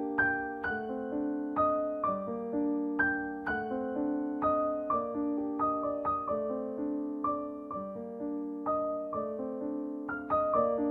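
Background piano music: a slow melody of struck notes, about two a second, over held lower notes.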